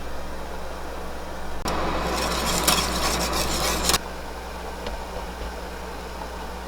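A pot of miso ramen broth on the stove, over a steady low hum. In the middle, a rushing noise like bubbling or sizzling from the pot starts and stops abruptly and lasts about two seconds.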